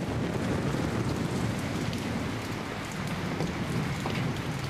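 Steady rain falling and splashing on a wet stone floor with puddles.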